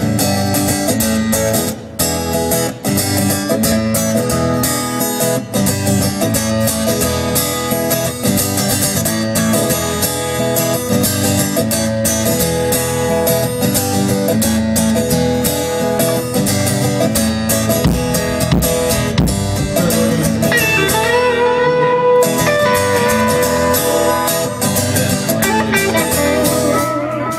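Amplified live band playing an instrumental passage, led by guitar over regular drum hits. About three-quarters of the way through, a wavering lead line with bending notes comes in over it.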